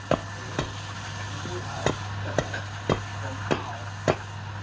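Sharp wooden knocks, roughly two a second, over a steady low hum.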